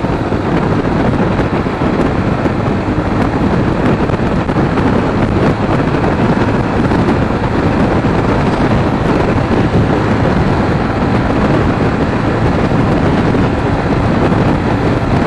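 Steady wind rushing over the microphone of a moving motorcycle, with the Sinnis Terrain T125's 125cc engine running underneath at a constant road speed.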